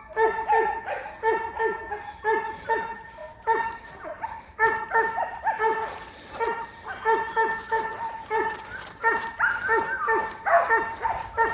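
A setter whining and yipping without pause: short, high, pitched cries, about two to three a second, many falling in pitch.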